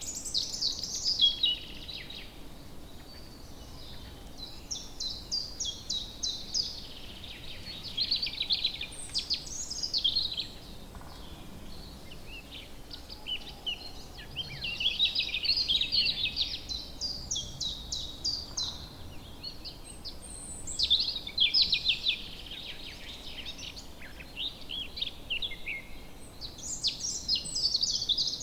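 Songbirds singing in woodland: short, rapid trilled and chirping phrases, a new phrase every few seconds, over a faint steady background hiss.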